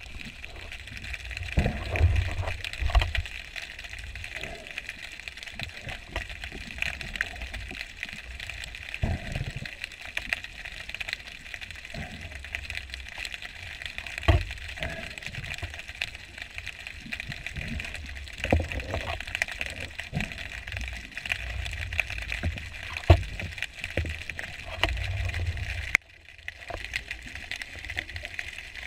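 Underwater sound picked up through an action-camera housing while a spearfisher swims: irregular muffled thumps and rumbles of water moving against the housing, scattered sharp clicks, and a steady high hiss.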